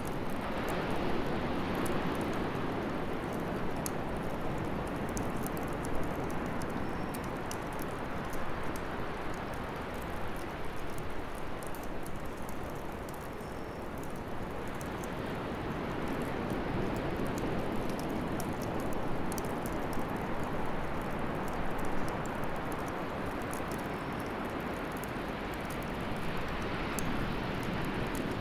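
Bonfire burning in a fire-pit stand: a steady rushing of flame that slowly swells and eases, with many small sharp crackles and pops.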